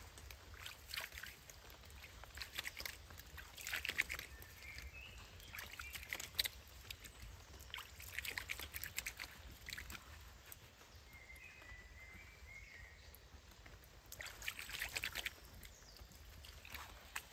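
Hands splashing and scooping water in a shallow woodland stream while washing, in short splashy bursts every one to three seconds.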